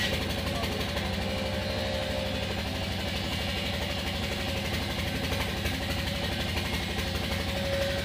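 An engine running steadily, with a fast, even low throb underneath.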